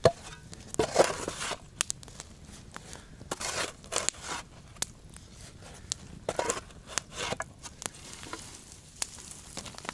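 A steel shovel scraping and digging in earth and ash beside a campfire, in several short strokes, while the wood fire crackles with sharp pops throughout.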